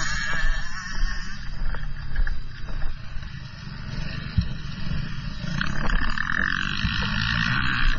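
GasGas 125 two-stroke motocross bike being ridden, its engine running with a rough, uneven buzz that rises and falls, mixed with wind noise.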